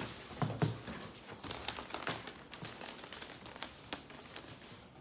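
Gift-wrapping paper rustling and crinkling as a wrapped present is handled and unwrapped, with irregular sharp crackles throughout.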